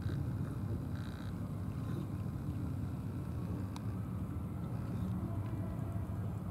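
Steady low outdoor rumble of background noise, with no distinct event standing out.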